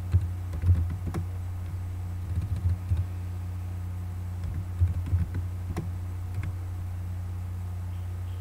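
Typing on a computer keyboard: three short bursts of key clicks, stopping a little over two-thirds of the way through, over a steady low hum.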